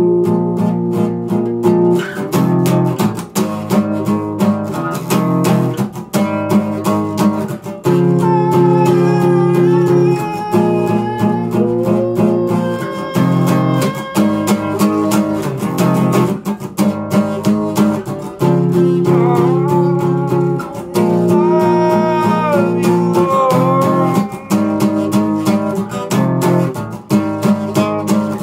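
Acoustic guitar strummed in a steady rhythm of chords, with a wordless sung melody rising over it through the middle stretch.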